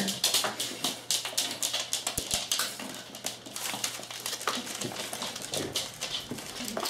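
Springer spaniel puppies scrambling on a wooden floor: many quick, irregular clicks and patters of their claws.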